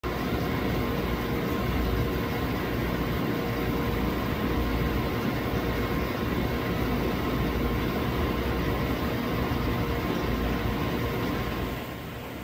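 Model train running on a layout: a steady mechanical running noise with a low rumble, which drops in level near the end.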